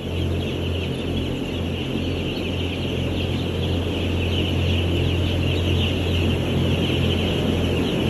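Dense, continuous peeping of thousands of three-day-old broiler chicks, a chorus of short high chirps, over the steady low hum of the shed's ventilation fans.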